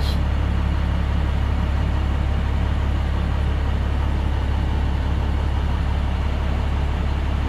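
A MaxxForce DT inline-six diesel in an International school bus idles steadily at low speed with a low drone. The engine is warmed up to operating temperature, ready for a parked DPF regeneration.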